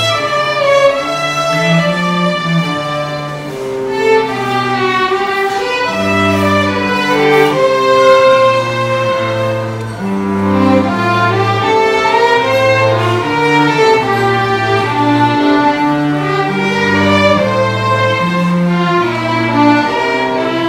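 Small live string ensemble of several violins and a cello playing, the cello holding a bass line of long notes under the violins' melody.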